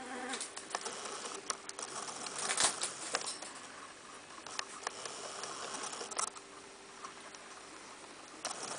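Rustling and scuffling with scattered sharp clicks as two-week-old puppies are picked up and handled on a fleece blanket.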